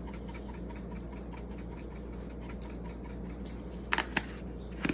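Dried parsley being shaken from a seasoning container over raw chicken: a faint, fine, rapid scratchy rattle. Two sharp clicks come about four seconds in, and a soft knock near the end.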